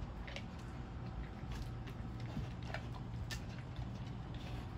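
A dog eating small pieces of food off paving stones: scattered, irregular crunches and clicks of chewing and snapping up bits, over a steady low hum.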